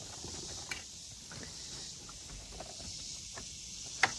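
Items being handled and rummaged behind a pickup truck's bench seat: faint rustling and small knocks, with a sharp click near the end. A steady insect drone runs underneath.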